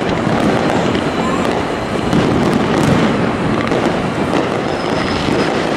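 Aerial firework shells bursting in rapid succession during a fireworks finale-style barrage, the bangs and crackle running together into one continuous din.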